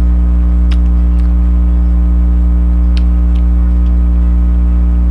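Loud, steady low electrical hum with a stack of even overtones, unchanging throughout, with a few faint clicks over it.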